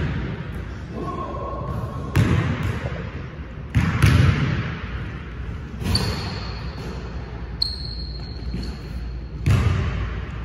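Basketball bouncing on a hardwood gym floor: a handful of irregular thuds that echo in the large hall, with a few short high squeaks in between.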